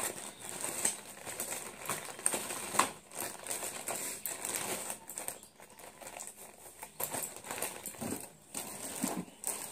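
Clear plastic packaging crinkling and rustling as it is handled and pulled open, with many irregular sharp clicks.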